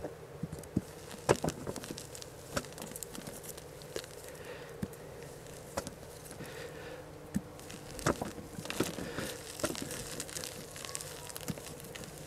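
Hands sifting and crumbling loose potting soil in a plastic wheelbarrow while searching it for potatoes: soft rustling with scattered light clicks and crackles as clumps break and roots tear. The sharpest clicks come about a second in and again near the middle.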